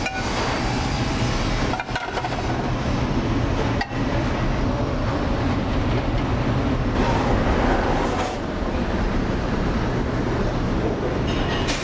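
Steady, loud rumble of commercial kitchen equipment, with a few light clinks of pans and utensils in the second half.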